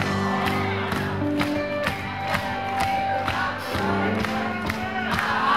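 Live funk band playing electric guitar and bass over a steady drum beat, with crowd noise from the audience.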